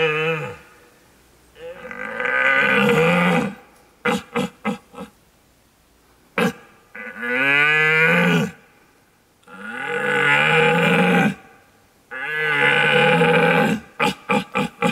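Red deer stag roar imitated on a wooden tube deer call. There are four long, deep roars of about two seconds each after the tail of one at the very start. Two runs of four or five short grunts come about four seconds in and again near the end.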